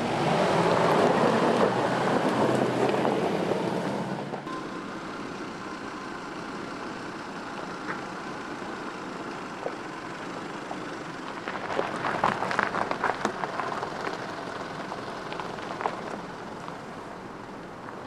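Mitsubishi Pajero's engine running as the SUV crawls off-road, louder for the first four seconds, then dropping sharply. About twelve seconds in, a burst of crunching and crackling from the tyres rolling over gravel.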